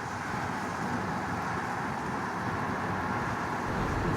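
Steady traffic noise, a constant even rumble and hiss with no distinct events.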